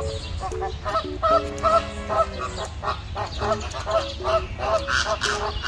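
A flock of flamingos honking: many short calls overlapping, several a second, with a low steady rumble underneath.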